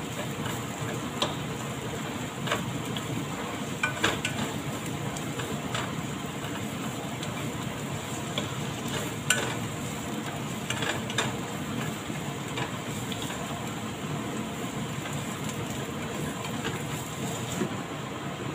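Sliced onions sizzling steadily in hot oil in a nonstick frying pan as they are sautéed and stirred with a silicone spatula. Now and then the spatula gives a light click against the pan.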